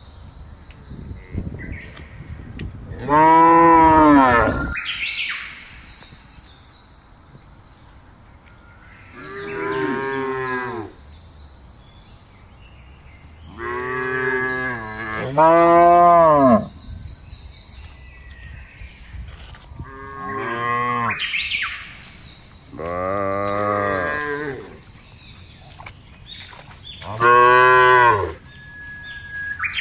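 Cattle mooing: about seven long moos a few seconds apart, each rising and falling in pitch, the loudest ones about three seconds in, in the middle and near the end.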